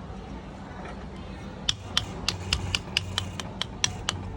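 A run of sharp metallic clicks, about four a second, starting a little way in over a steady low hum: small metal parts or tools being handled.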